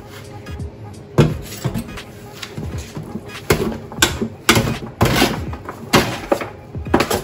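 A metal utensil scraping and clanking against a disposable aluminum foil pan as cooked noodles are tossed with oil to keep them from sticking together, in irregular strokes that come faster from about halfway through.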